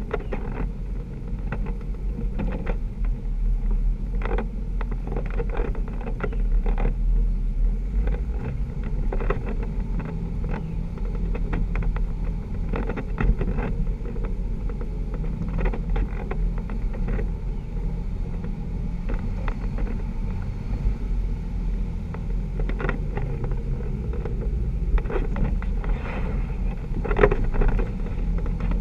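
Off-road Jeep's engine running steadily at low speed, heard close from a hood-mounted camera, as it crawls along a rough dirt trail. Short knocks and clatters come and go as the Jeep bounces over the uneven ground.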